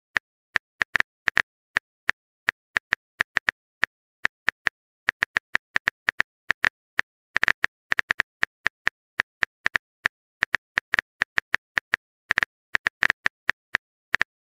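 Phone keyboard typing clicks: a steady run of quick, identical taps at an uneven pace, a few a second, with brief pauses.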